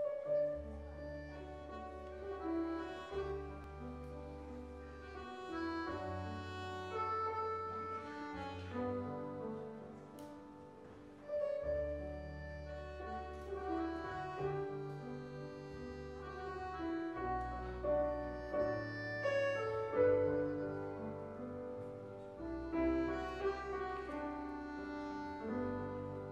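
Instrumental introduction played on grand piano and accordion, with long held low bass notes underneath. It starts abruptly.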